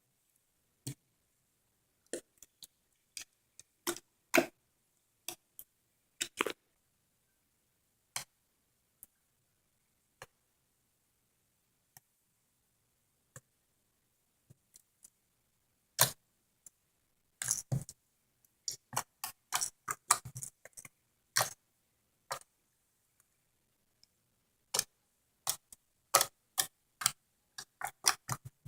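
Crunchy slime with beads being handled: sparse, irregular little clicks and pops with short silences between them, clustering into a quicker run of pops in the middle and again near the end.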